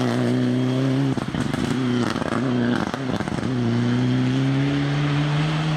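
Mitsubishi Lancer Evolution IX rally car's turbocharged four-cylinder engine running hard at high revs. The note breaks off briefly twice, about a second in and again near three seconds, with a rough crackly gap each time, as on a lift or gear change. It then pulls again, the pitch climbing slowly.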